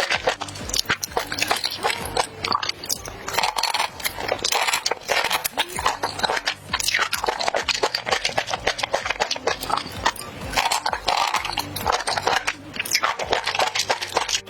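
Close-miked mouth sounds of a person biting and chewing saucy octopus and enoki mushrooms: dense, irregular, wet crunching and clicking throughout.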